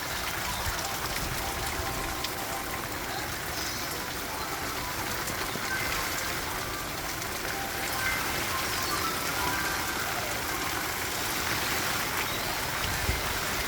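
Rain coming down steadily, a continuous even hiss of falling rain.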